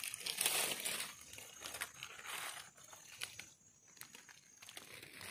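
Dry leaf litter crackling and rustling as it is disturbed, with a brief lull about three and a half seconds in.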